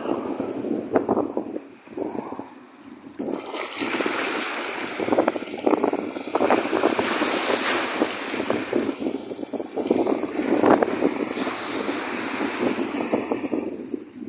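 Wind rushing over the microphone along with the wash of sea water. It dips briefly about two seconds in, then comes back as a steady rush with a strong hiss from about three seconds in.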